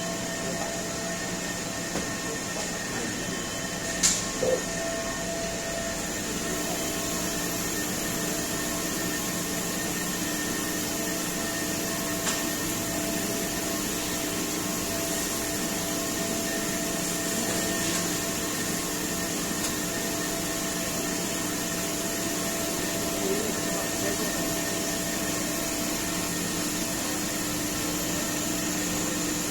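Brush washing machine running: a steady mechanical whir and hum, with a couple of light clicks.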